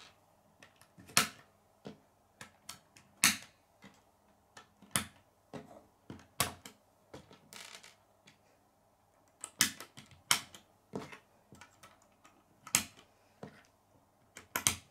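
Plastic K'nex pieces clicking and clacking as connectors are snapped onto a rod and set down on a wooden tabletop, in sharp separate clicks at irregular intervals.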